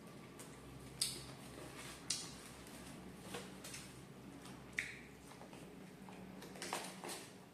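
Close-up eating sounds: a person chewing crispy fried duck, with several sharp, short crunching or smacking sounds, about a second in, two seconds in, near the middle and near the end.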